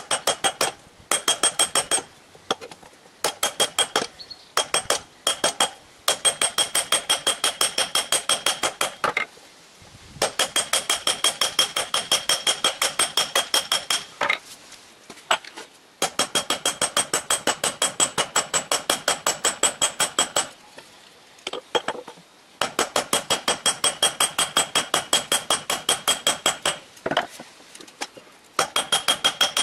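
Hand hammer striking red-hot steel on an anvil in fast, even runs of about four or five blows a second. Each blow has a bright metallic ring, and the runs are broken by short pauses.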